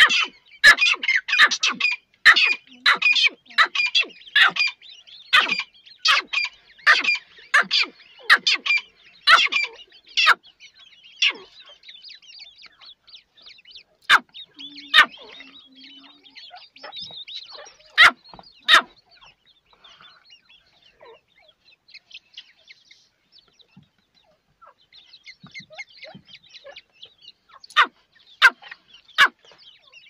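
Grey francolin hen and chicks calling. A rapid run of loud, sharp calls, about two or three a second, fills roughly the first ten seconds. After that the chicks' soft, high peeping goes on continuously, broken by a few more loud calls.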